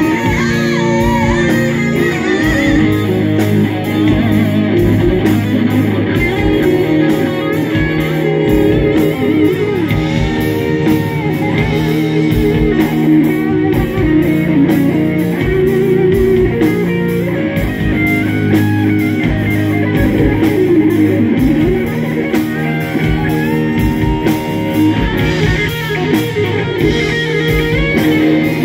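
Live rock band playing an instrumental passage: distorted electric guitars with a bending lead line over bass and a steady drum beat.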